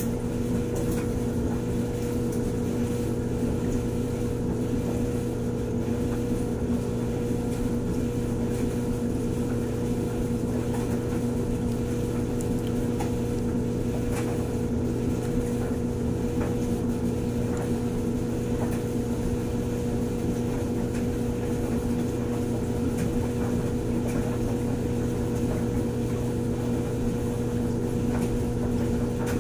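Steady machine hum at one unchanging low pitch, with a few faint ticks over it.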